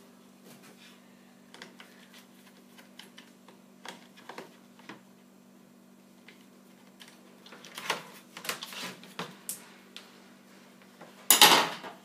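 Small clicks and metallic clinks of test leads, clips and a screwdriver being handled at a fridge compressor's terminals, busier about two-thirds of the way in, with a louder half-second clatter near the end. A low steady hum runs underneath.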